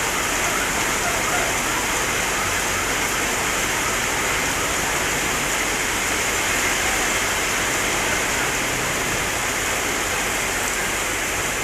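Rain pouring down in a steady downpour, a dense, even hiss with no letup.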